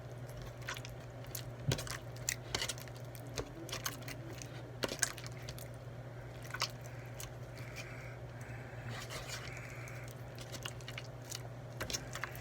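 Slime with a lot of added water being mixed by hand, giving scattered sticky clicks at irregular intervals over a steady low hum.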